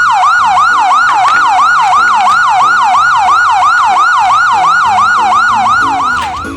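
Toy police car's battery-powered electronic siren sounding: a loud, fast, repeating yelp whose pitch jumps up and falls off about three and a half times a second, dropping away near the end.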